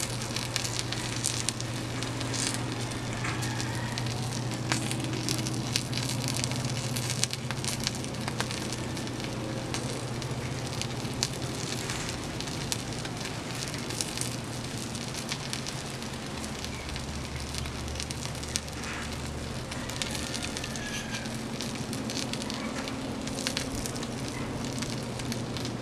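Wood and foil-lined drink cartons burning in a steel fire pit: steady crackling with frequent sharp pops and snaps. A steady low hum runs underneath.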